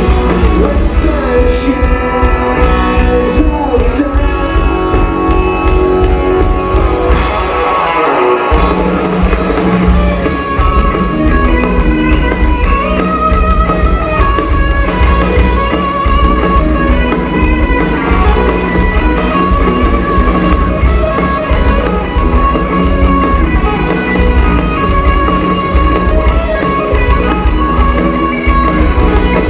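Live rock band playing loud: electric guitars, bass and drums. The drums and bass drop out briefly about eight seconds in, then the full band comes back in.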